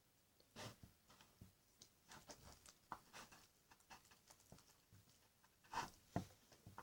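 Clear slime being handled, making faint, irregular soft squishes and clicks.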